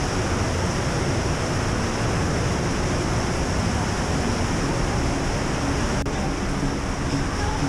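Underground cave stream rushing and cascading over rocks: a steady, unbroken rush of white water.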